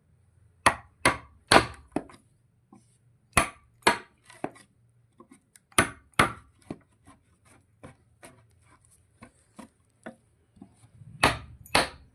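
Sharp knocks of a hammer or mallet striking wood, coming in irregular groups of two or three loud blows with lighter taps between.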